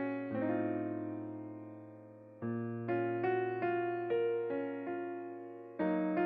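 Background piano music: chords struck and left to ring and fade, with single melody notes in between.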